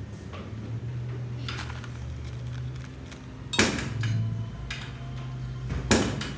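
A few metallic clanks, like tools striking or dropping on steel parts, during work on a loader wheel. The two loudest clanks come in the second half, over a steady low hum.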